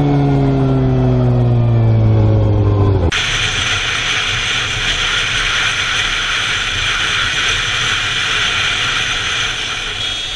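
Motorcycle engine, its pitch falling steadily for about three seconds as the bike slows. Then a sudden change to a steady rush of wind and engine noise from another motorcycle riding at speed.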